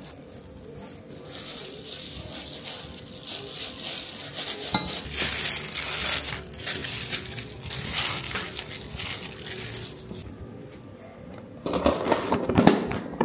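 Disposable plastic glove crinkling and rustling as hands roll raw meatballs and set them on a plastic draining rack. Near the end come louder knocks and clatter as a plastic lid is fitted onto the container.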